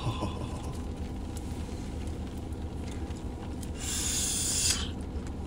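Steady low rumble inside a parked car's cabin, with a hiss lasting about a second near the four-second mark.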